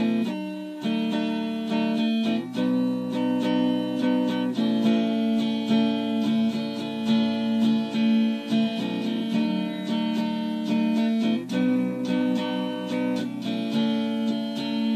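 Acoustic guitar music: strummed chords that change every few seconds.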